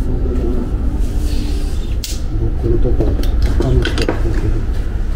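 Metal hand tools clinking and clattering on a workbench as they are picked through, a few sharp clinks about two seconds in and again around four seconds, over a steady low rumble.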